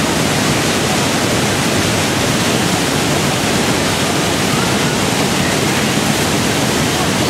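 Niagara Falls pouring onto the rocks below: a loud, steady rush of falling water that does not let up.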